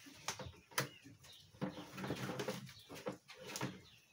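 A kitchen knife scraping fresh coconut meat out of the shell, heard as a few short, sharp scrapes and knocks spread across the moment. Birds call faintly in the background.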